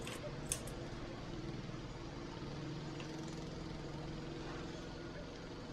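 Steady low hum of a running motor, with a light click about half a second in.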